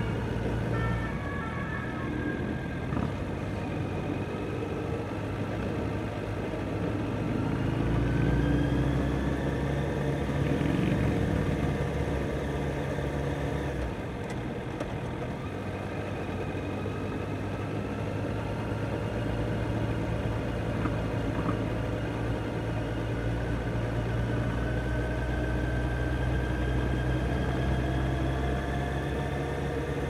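Kawasaki Z900's inline-four engine running while riding, its pitch slowly rising and falling with engine speed and briefly louder a third of the way in.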